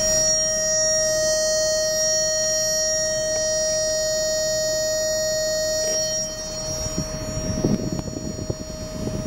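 A steady, high electronic tone, as from a warning buzzer, sounds over the low rumble of the Volkswagen New Beetle's engine idling in the car's cabin. The tone drops in level about six seconds in, and some shuffling noise follows.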